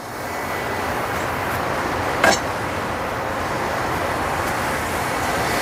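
A steady rushing noise, with one short metallic clink about two seconds in as the steel tire bar knocks against the manual tire changer.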